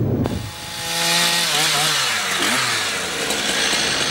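Chainsaw running and cutting wood, starting about a third of a second in; its engine pitch dips and wavers under load in the middle, then steadies.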